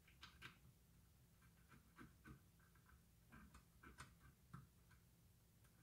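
Faint, irregular scratching and ticking of a sharpened wire scraped up and down in the slots between the commutator segments of a circular saw motor, clearing out dirt and metal dust that could short the segments.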